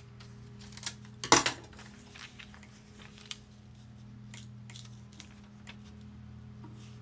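A pair of scissors put down with a short clatter on a cutting mat about a second in, followed by light paper handling and a few small clicks as a magazine page is smoothed and folded. A steady low hum runs underneath.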